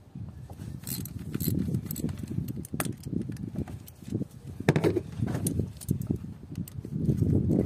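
Scattered clicks and rattles of hoses and plastic fittings being handled and unclipped on a diesel engine, over a low, uneven rumble.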